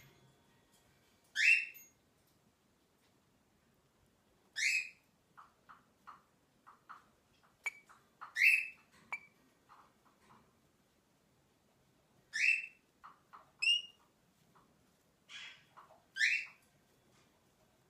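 Rainbow lorikeet giving short squeaky chirps, about six of them a few seconds apart, each a quick rising squeak, with faint soft clicks in between.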